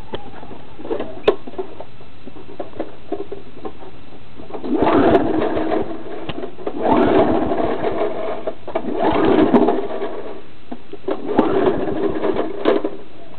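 Push mower's 3.5 hp Briggs & Stratton Classic single-cylinder engine running with a steady rapid chatter, rising in loudness four times in the latter half.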